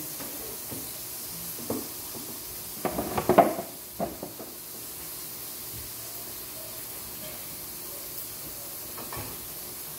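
Steady sizzling from food cooking on an electric grill pan, with a burst of dish and utensil clatter about three seconds in and a few more knocks just after.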